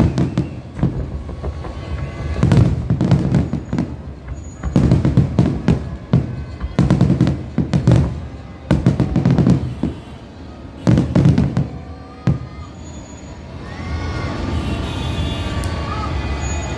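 Fireworks going off in a rapid series of deep booms and crackles, a new burst every second or two, giving way after about thirteen seconds to a steadier background din.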